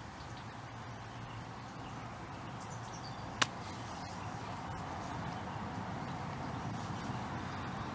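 Outdoor background ambience: a steady, even hiss that grows slightly louder, broken once about three and a half seconds in by a single sharp click.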